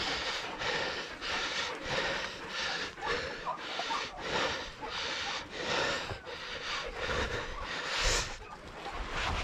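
Heavy rhythmic breathing close to the microphone, about two breaths a second, typical of hard exertion.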